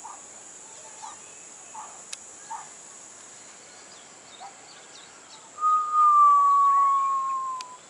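Tropical forest birds and insects: a steady high insect drone with scattered short bird chirps, then, about five and a half seconds in, a loud, clear whistle held for about two seconds, sliding slightly down in pitch.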